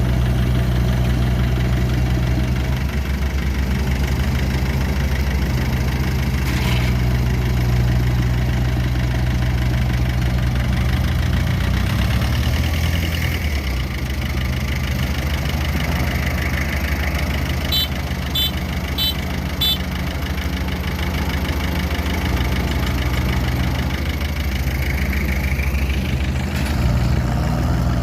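Diesel engine of farm machinery running steadily, a constant low hum with no change in speed, easing off slightly in loudness around the middle. A few faint ticks sound about two-thirds of the way through.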